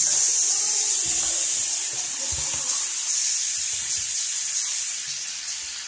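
Bathroom sink tap turned on suddenly and running in a steady, loud hissing stream of water.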